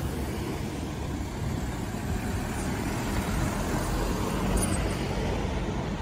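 Urban street traffic: cars driving past at low speed with a steady tyre and engine rumble, one car passing closer and louder about three to five seconds in.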